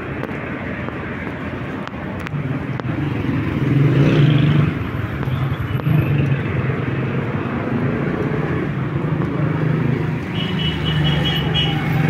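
Street traffic on a city road: cars and motorcycles passing with their engines running, getting louder a few seconds in.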